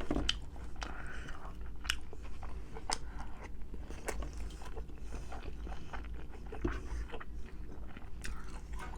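A person chewing food close to the microphone, with many small wet mouth clicks and smacks at an irregular pace.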